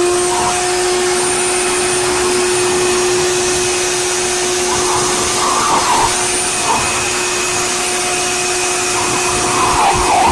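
Electric blow dryer running steadily at one constant pitch, with a rushing of air. A higher, wavering sound comes and goes over it twice, about halfway through and near the end.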